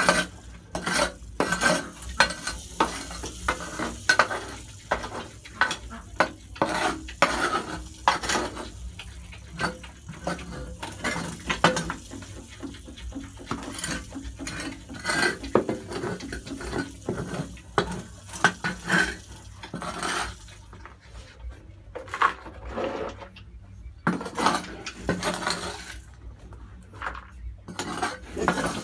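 Porcupines jostling and feeding close together, making rapid, irregular clicks and clatters with short pauses, quieter for a few seconds about twenty seconds in.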